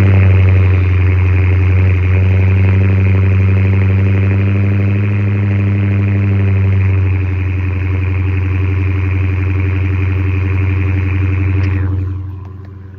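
2019 Dodge Challenger Scat Pack's 392 (6.4-litre) HEMI V8 idling steadily just after a true cold start, through the stock exhaust with all factory mufflers and resonators in place. Pretty quiet, at least for a V8. The sound drops off in loudness near the end.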